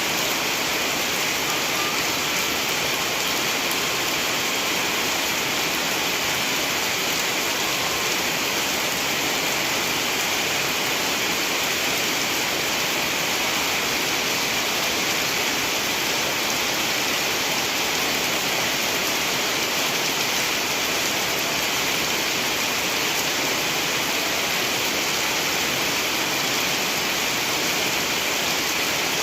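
Steady rain falling, a continuous even hiss with no thunder or other events.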